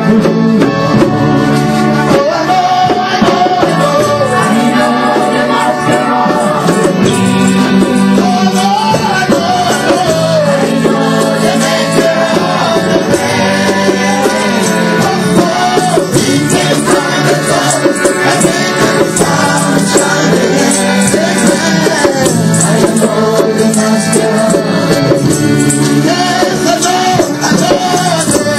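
Live gospel worship music: a voice singing a wavering melody over a backing band.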